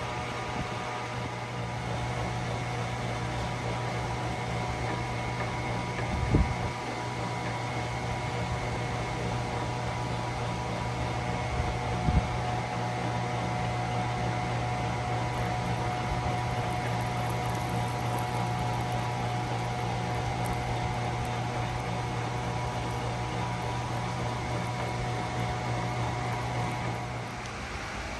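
Motor-driven antique wet grindstone running with a steady hum, with two short knocks about 6 and 12 seconds in; it winds down about a second before the end.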